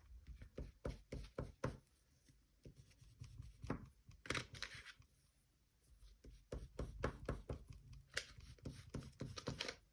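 Oil pastel scratching on paper in quick, short strokes, laid down in runs with brief pauses between them, as feather texture is hatched in.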